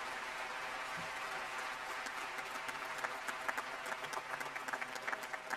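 Audience applause rising over the last held chord of the violin and string orchestra; the clapping grows denser and sharper about three seconds in.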